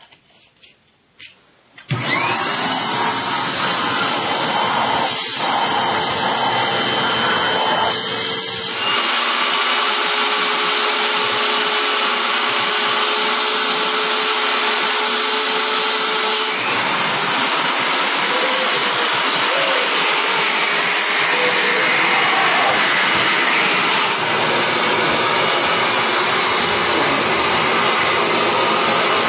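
Hoover Tempo Widepath U5140-900 bagged upright vacuum cleaner switching on about two seconds in and running steadily with a high motor whine. Its tone shifts twice while it runs.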